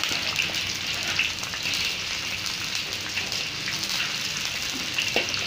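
Garlic, onion and lemongrass frying in hot oil in a wok, sizzling steadily with many small pops.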